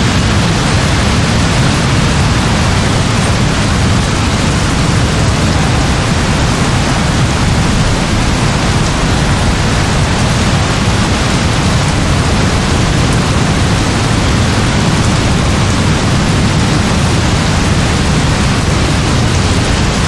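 Heavy rain falling in a steady, even downpour.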